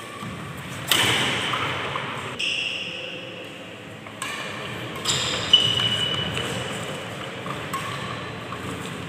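Badminton rackets striking the shuttlecock in a doubles rally: about six sharp smacks at uneven intervals, each ringing on in a large echoing hall.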